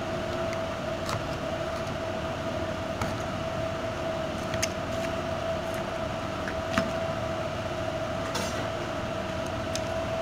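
A knife scoring raw seasoned croaker fish and chicken, its blade now and then clicking sharply against the plastic plate, over a steady mechanical hum with a constant tone.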